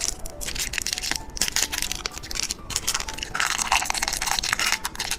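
Crinkly plastic wrapper of a small candy packet being handled and torn open: a dense, irregular run of crackles and rustles.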